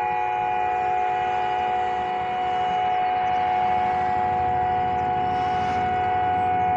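Civil-defence sirens howling, held at a steady pitch, several tones sounding together.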